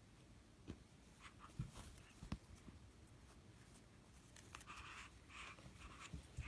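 Faint rustling and scuffing from a chihuahua tugging and chewing a plush rope toy, with a few soft knocks in the first half and a quick run of short scratchy bursts near the end.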